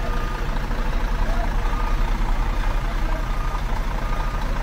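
Heavy diesel machinery running steadily with a deep rumble, with a few faint short beeps now and then.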